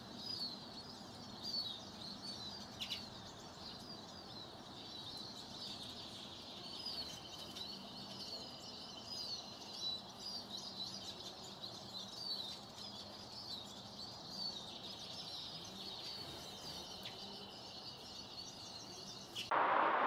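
Common redpoll calling: a quick run of short, high chirps repeating throughout, with a thin steady high note held underneath from about a third of the way in.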